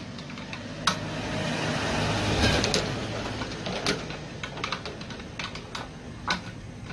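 Small clicks and taps of hand tools and plastic fuel-system parts as the fuel filter is worked out of a Honda GX35 brush cutter's fuel tank. A longer scraping noise comes about two seconds in.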